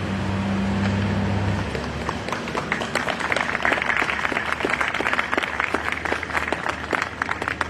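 An audience applauding. The clapping swells about two and a half seconds in and thins out near the end. A steady low hum sounds during the first second and a half.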